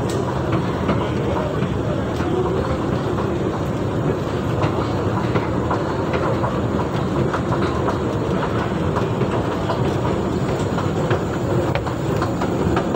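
Escalator running, heard close to its moving steps: a steady mechanical rumble with many light clicks from the steps and comb plates.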